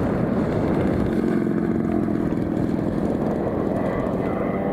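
Propeller engine of a large radio-controlled scale Junkers Ju 87 Stuka model running steadily as the model lands and rolls out.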